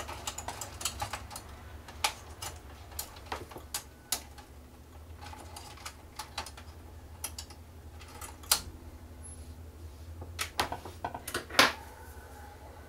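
Irregular small clicks and ticks of a screwdriver backing out the screws that hold a projector's main circuit board, with a few louder taps near the end.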